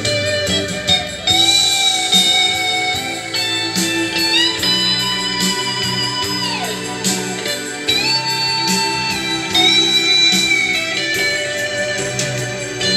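Recorded music played from a vinyl record on a Technics SL-1210 turntable through a home hi-fi, heard over loudspeakers. A lead guitar holds long notes that slide up and down in pitch over a steady accompaniment.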